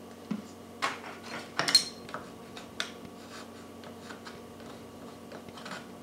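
Scattered light clicks and clinks of small metal hardware and tools being handled on a workbench. The loudest, a little under two seconds in, has a short metallic ring.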